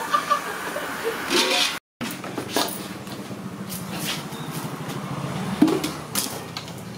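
Commercial stone wet grinder running with a steady hum as its roller turns through vada batter in a stainless steel drum. A few sharp clinks and knocks come on top as batter is scooped out of the drum by hand.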